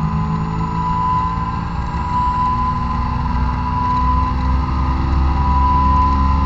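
Honda S2000's high-revving four-cylinder engine at full throttle, pulling hard in one gear from about 6,500 to over 8,000 rpm, heard from inside the cabin through its test-pipe and Fujisubo exhaust. The engine gets a little louder toward the end, and a steady high whine runs underneath it.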